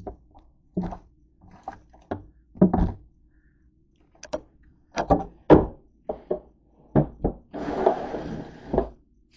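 A string of hollow knocks and thunks as things are handled in a plastic storage bin and its lid is shut, the loudest about five and a half seconds in. About a second of rustling follows near the end.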